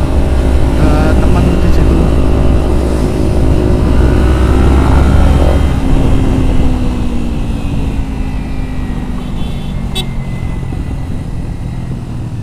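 Kawasaki Ninja 250FI parallel-twin engine running under way, with heavy wind rush on the helmet-camera microphone. About halfway through, the engine note falls gradually and the wind rush eases.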